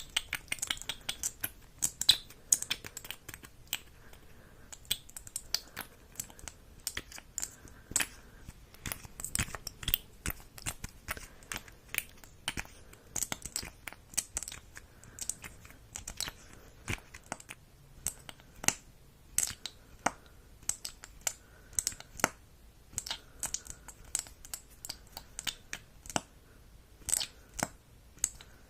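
Close-miked ASMR handling sounds: irregular crisp clicks and crackles, a few a second, some sharper than others.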